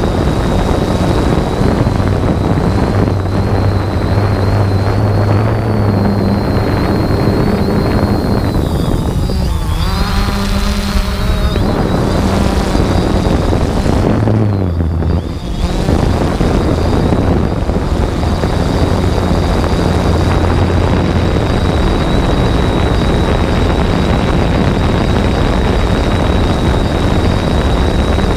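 3DR Solo quadcopter's electric motors and propellers, heard close through the camera it carries: a steady buzzing drone with a high whine. The pitch dips and shifts twice near the middle as the motors change speed.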